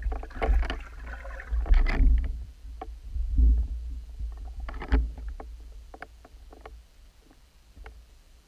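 Water splashing and swirling, heard underwater, as a pike seizes and thrashes with a dead bait fish hanging on a line near the surface. It is loudest in the first two seconds, with a deep rumble under it, then comes again more briefly, a sharp thump about five seconds in, and scattered faint clicks as it settles.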